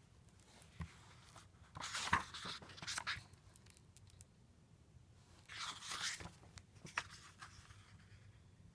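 Paper rustling and crinkling as the pages of a picture book are handled and turned, in two short stretches, one about two seconds in and one about five and a half seconds in, with a few small clicks.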